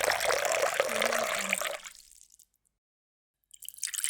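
Water being poured in a steady stream, splashing, that tails off and stops just before two seconds in. After a second of silence a new pour starts near the end.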